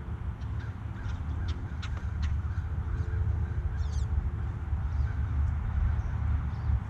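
Wild birds calling: scattered short chirps and a quick high twittering about four seconds in, over a low steady rumble.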